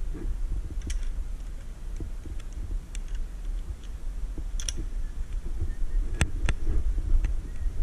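Metal carabiner hardware clicking against a steel safety cable, about half a dozen sharp, scattered clicks, over a steady low rumble on the microphone.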